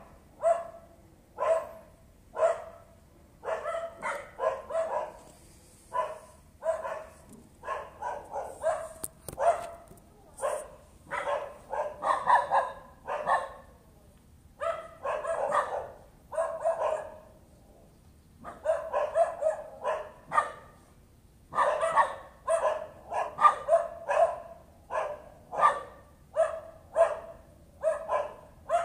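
A dog barking over and over, single barks and quick runs of barks at about one to three a second, with only short gaps: persistent nuisance barking.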